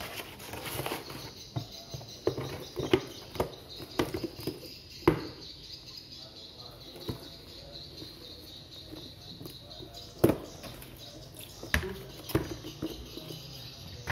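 Cardboard box and plastic packaging being handled: rustling with scattered knocks and taps, the sharpest about five and ten seconds in, as the kit box is lifted out and set down on a tiled floor.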